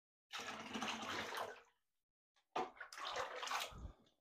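Water running and splashing in a bathtub during a puppy's bath, in two stretches of about a second and a half each with a break between.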